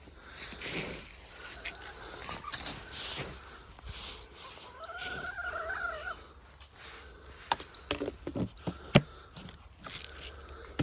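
Backyard hen giving one drawn-out, arching call about five seconds in, among scattered light taps and scratching sounds.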